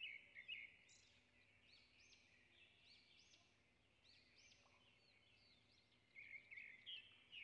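Faint birdsong: small birds chirping in quick, high, arching notes, a little louder about six seconds in.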